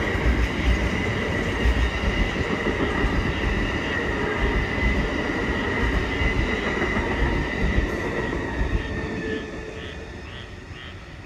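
Amtrak passenger cars rolling past at speed: a steady rumble and rattle of wheels on rail with a high, steady wheel whine. It fades away after the last car clears, from about nine seconds in.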